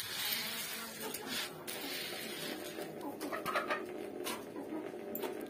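Domestic birds calling: a steady run of low calls, with a few light scratches of grain being picked over by hand on a bamboo winnowing tray.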